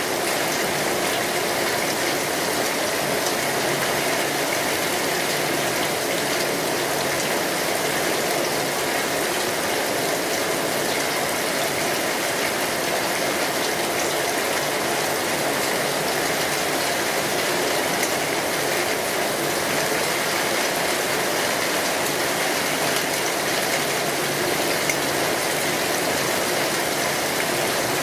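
Steady rain falling, a dense even patter that does not let up.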